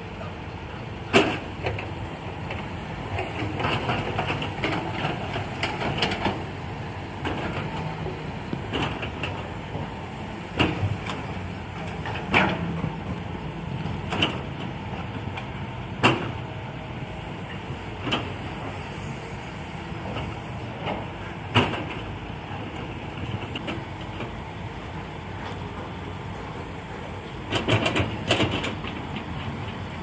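Diesel engines of hydraulic excavators and dump trucks running steadily, with sharp metallic clanks every few seconds from the digging buckets. Near the end, a cluster of knocks as a bucket load of soil and rock drops into a steel dump-truck bed.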